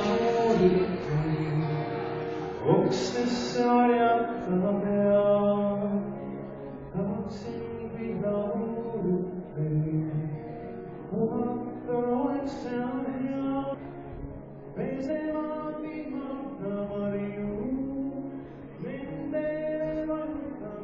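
A man singing a folk song with acoustic guitar accompaniment, the melody in long, held notes.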